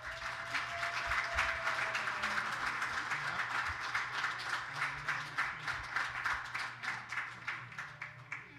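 Audience applauding, a dense patter of many hands clapping that thins out over the last couple of seconds.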